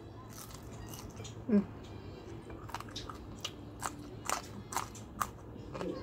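Close-up crunching of raw yard-long beans being bitten and chewed: a run of sharp, crisp crunches in the second half. A brief hum of the voice about a second and a half in.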